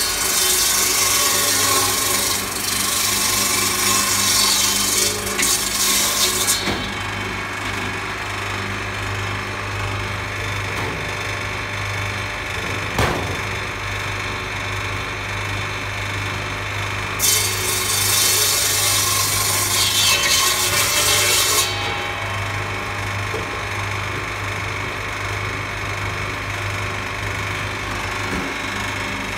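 Eight-blade ice-block cutting saw with a 1.5 hp electric motor running with a steady hum. Twice, for about six seconds at the start and for about four seconds later on, the blades saw loudly through a block of ice. A single sharp knock about thirteen seconds in.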